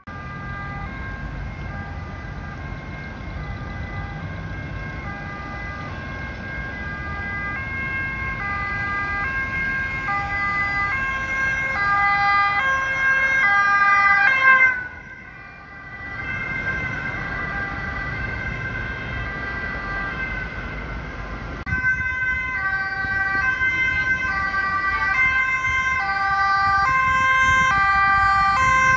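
Ambulance two-tone sirens switching back and forth between a high and a low pitch over a low road-traffic rumble, growing louder as each ambulance approaches. About halfway through the siren drops away briefly, then another one comes in and builds again.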